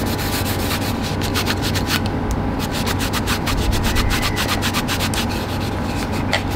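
Cloth rubbed briskly over a walnut chair part, working orange oil into the wood: a quick run of scratchy rubbing strokes, thinning briefly about two seconds in.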